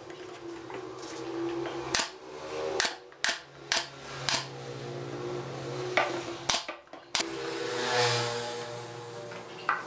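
A series of sharp wooden knocks and clacks, about eight spread over several seconds, as pine boards are handled and fitted into a wooden cabinet frame on a workbench. A steady droning hum runs underneath and swells near the end.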